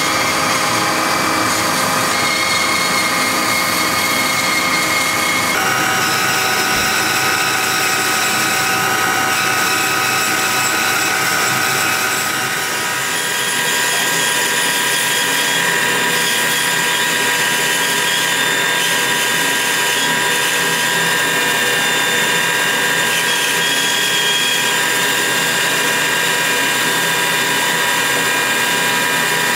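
Felder FB 510 bandsaw running with a steady whine made of several held tones. The sound changes about five seconds in, dips briefly, and changes again around thirteen seconds in.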